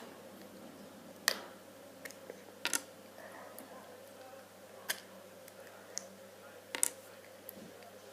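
Sharp plastic clicks as the centre caps of a Rubik's cube are prised off with a screwdriver, four of them, about two seconds apart.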